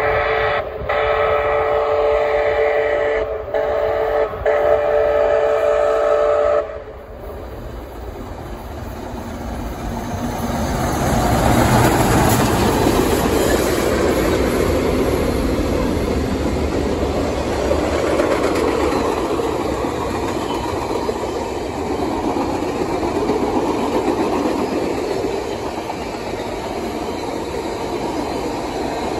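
Canadian Pacific 2816's steam chime whistle blowing a long, long, short, long crossing signal that cuts off about seven seconds in. The Hudson steam locomotive then passes close by, building to a loud rush about twelve seconds in, followed by the steady rumble of its passenger cars rolling past.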